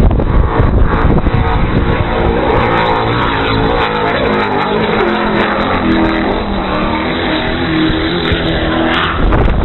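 Offshore racing powerboat engines running at full speed, a loud steady drone whose pitch rises and falls as the boats pass.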